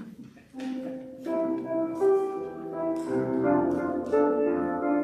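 Piano music starting about half a second in, several notes sounding together and changing in steps, like the start of a song accompaniment.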